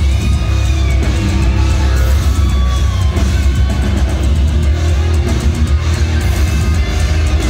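Deathcore band playing live at full volume: heavily distorted electric guitars over drums, with a dense, booming low end.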